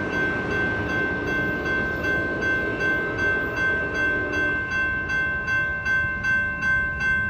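A warning bell ringing steadily, about two strokes a second, over the low rumble of an Amtrak Capitol Corridor train pulling away.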